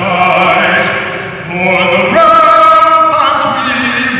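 A man singing solo into a microphone through an arena PA system, in slow held notes that change pitch about once a second.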